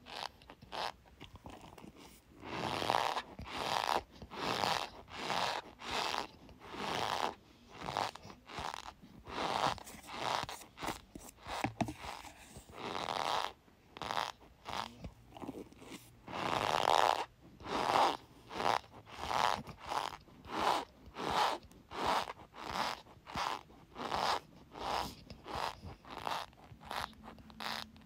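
Spoon pressing and scraping through a bowl of powdery scented Argo cornstarch, making a squeaky crunch with each stroke, about one or two strokes a second.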